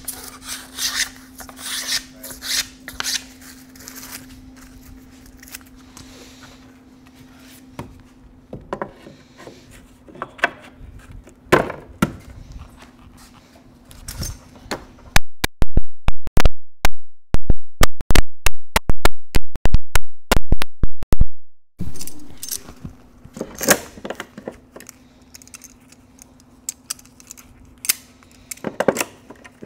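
A hammer driving wooden parting bead strips into a window frame's slots: a fast run of about twenty very loud strikes, roughly three a second, for some six seconds past the middle. Before and after it come scattered wood scrapes and knocks as the strips are handled, over a steady low hum.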